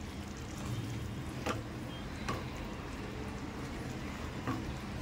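Wooden spatula stirring thick curry with cream in an aluminium pot: soft squelching with three light taps of the spatula against the pot, over a steady low hum.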